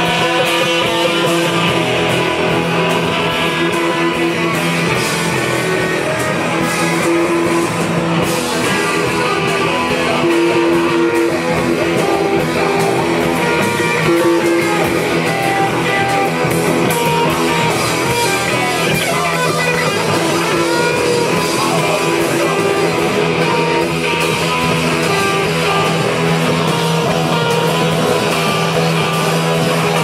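Live rock band playing at a steady, loud level: electric guitar, bass guitar and drums with crashing cymbals.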